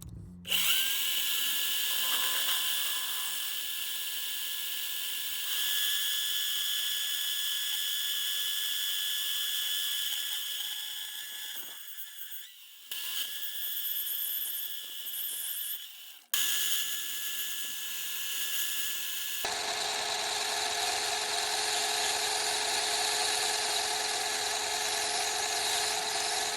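Mini lathe running with a steady motor whine while a small metal cap is turned down to rough shape. The sound cuts out briefly twice about halfway through.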